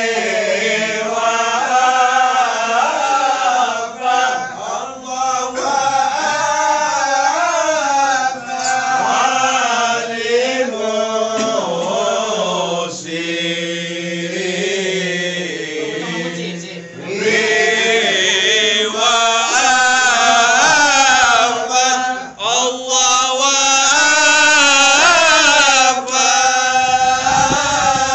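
Group of men chanting marhaban in unison: Malay devotional verses of praise to the Prophet, sung continuously in long, wavering melodic phrases.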